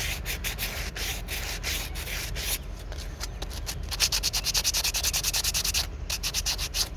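Quick, even hand-rubbing strokes on a small wooden carving, about five a second, growing louder and hissier for a couple of seconds past the middle.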